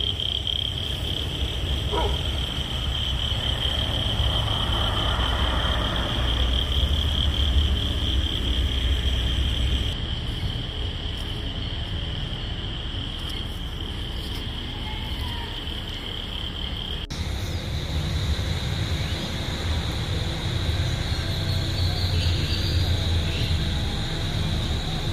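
Insects droning in one steady high-pitched whine over a continuous low rumble; after a cut about two-thirds of the way through, the whine carries on a little higher.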